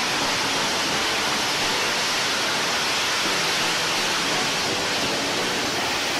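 AV-8B Harrier hovering, its Pegasus vectored-thrust turbofan giving a steady, unbroken jet noise.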